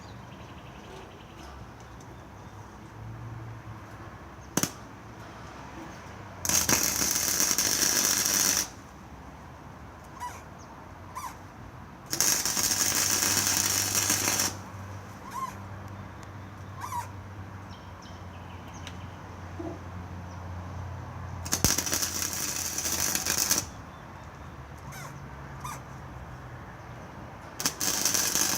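Electric arc welding on the steel frame of a cart: four runs of crackling, sizzling arc, each about two seconds, with short pauses between them.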